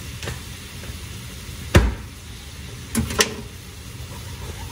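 Sharp kitchen knocks: one loud knock a little under two seconds in, then two quicker knocks about a second later, as utensils and the cream container are handled at the skillet. A low steady hum runs underneath.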